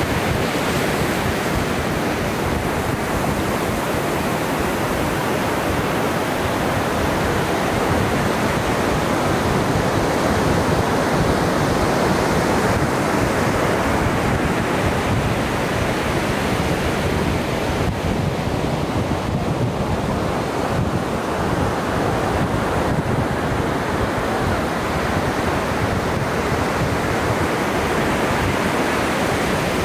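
Ocean surf breaking and washing onto the beach: a steady rush of waves with no single break standing out.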